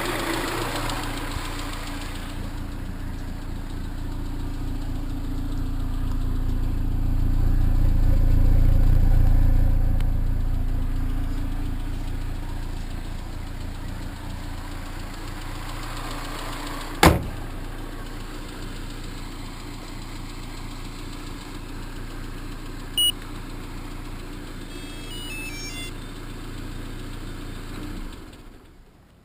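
Chevrolet Cobalt SS supercharged four-cylinder engine running with a ping-type knocking rattle, which the owner links to a newly installed belt tensioner. The engine grows louder for a few seconds, then settles; there is one sharp click past the halfway point, and the running sound stops shortly before the end.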